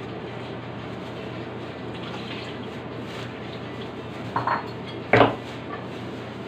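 Metal hacksaw scraping across a rock-hard cooked block, with two sharp metallic clinks about four and five seconds in, the second the louder. A steady low hum runs under it.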